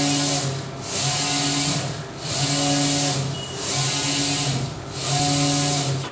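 Large-format flex printer's print-head carriage sweeping back and forth across the sheet: a steady motor whine with a hiss on each pass, five passes with brief dips where the carriage reverses, about every second and a half. The sound cuts off suddenly at the end.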